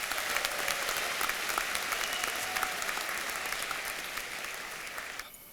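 Audience applauding in a large hall, dense clapping that fades away about five seconds in.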